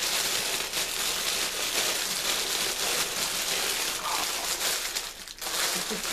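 Plastic packaging crinkling steadily as it is handled and stuffed, with a short lull about five seconds in.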